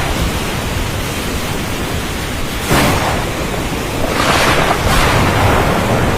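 Steady heavy rain with a low rumble beneath it, swelling in gusty surges about three seconds in and again a little after four seconds.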